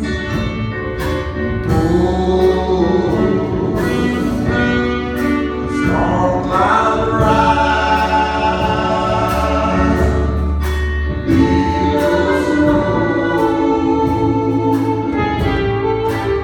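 Live gospel song: a woman singing solo, holding long notes, with keyboard accompaniment, a strong bass and a steady beat.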